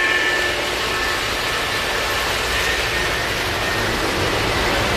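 Three-rail O gauge model train running on its track: a steady noise of motor and wheels. The last of its whistle, several steady tones together, fades out about half a second in.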